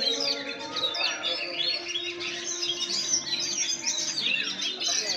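Oriental magpie-robin (kacer) song: a continuous, rapid stream of varied chirps and whistles.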